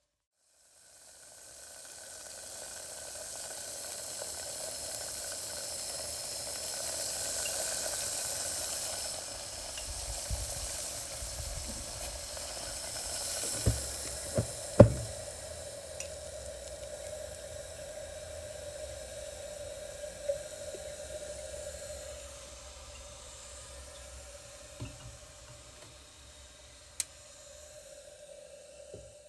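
Water boiling: a steady bubbling hiss that swells over the first several seconds and eases toward the end. A few sharp pops or knocks break through, the loudest about fifteen seconds in.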